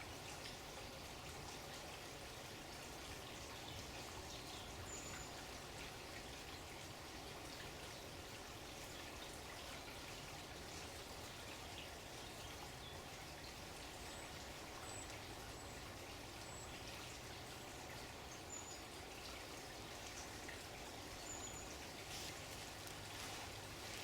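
Faint, steady running water, with a bird giving short, high chirps now and then.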